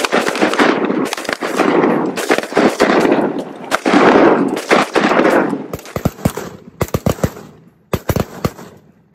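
A volley of shotgun fire from several duck hunters shooting at once. The shots overlap thickly for the first five seconds or so, then thin out into scattered single shots.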